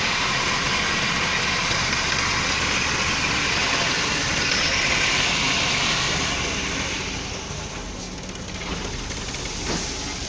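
Tractor-driven wheat thresher running: a dense, steady rushing noise over a low engine hum. The rushing fades about seven seconds in, leaving mostly the low hum.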